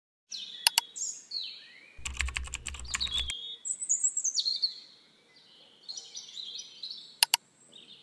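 Intro sound effects: high bird-like chirps throughout, a quick double mouse click near the start and again near the end, and a burst of rapid keyboard-like clicking over a low hum between about two and three seconds in.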